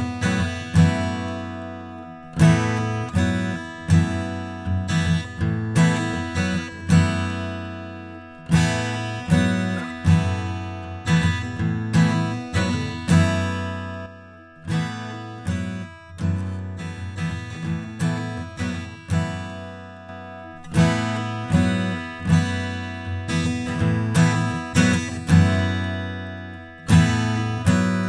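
Steel-string acoustic guitar strummed gently, a chord every second or so, heard through a condenser microphone and an audio interface's 1176-style compressor, which is switched between its vocal, off and guitar settings.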